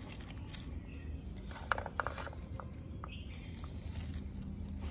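Fingers pressing and rustling in the soil and leaves of a potted moss rose, with a few faint clicks about halfway through.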